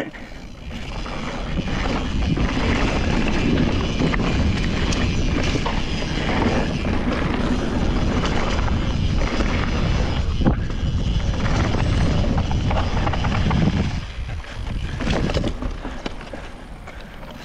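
Wind rushing over the handlebar-mounted action camera's microphone and mountain bike tyres rumbling over a grass and dirt track at speed, with occasional sharp knocks from the bike over bumps. The rush builds over the first couple of seconds and eases off near the end.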